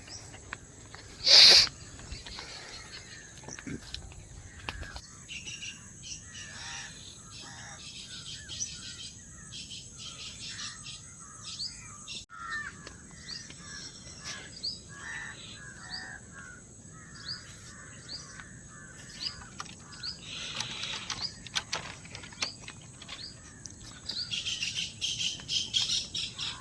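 Many small birds chirping and calling in the open, with many short separate calls. A brief loud sound comes about a second and a half in, and the calls grow denser near the end.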